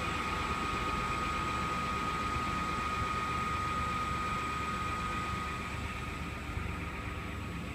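Steady mechanical drone of construction machinery running, with a constant high whine over a low rumble, easing slightly near the end.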